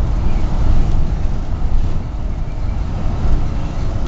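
Double-decker bus in motion, heard from inside: a steady low engine and road rumble.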